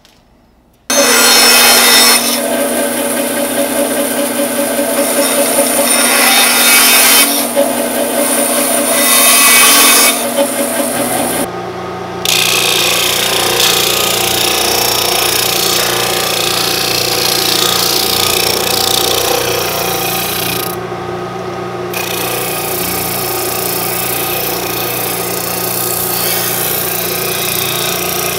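Bench disc sander running with the end of a hickory handle held against the spinning abrasive disc: a steady motor hum under a loud rasping of wood being sanded, rounding over the end. It starts abruptly about a second in, and the sanding sound changes character about halfway through.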